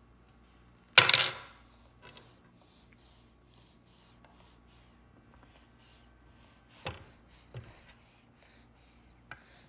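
Metal spoon striking a wooden high-chair tray: one loud clatter with a brief metallic ring about a second in, then a few softer knocks later on.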